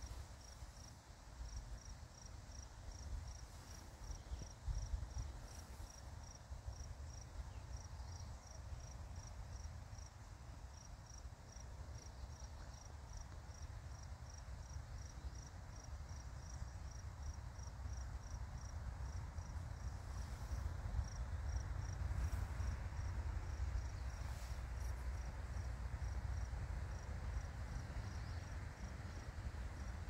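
Insect chirping in short, high, evenly spaced chirps about three a second, over a low rumble.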